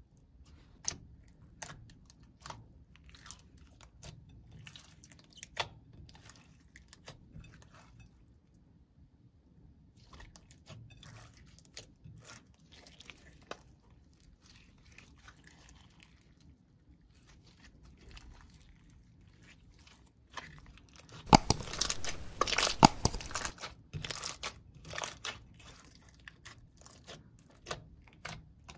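Hands squeezing and kneading clear slime packed with glitter flakes: sticky pops and crunchy crackles, scattered at first, then densest and loudest about two-thirds of the way through.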